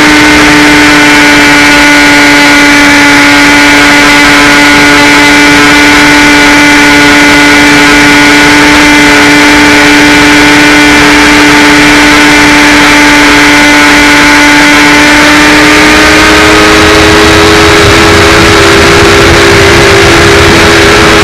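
Electric motor and propeller of a HawkSky RC glider running at steady throttle, a loud even whine with wind noise, its pitch rising slightly about three quarters of the way through.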